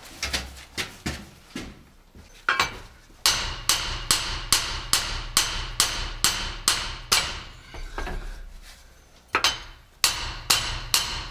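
Hammer blows on steel, ringing clangs at about two and a half a second, struck at the tight-fitting driveshaft of an Opel Frontera to knock it loose. A few lighter blows come first, then a long steady run of heavy ones with a brief pause about nine seconds in.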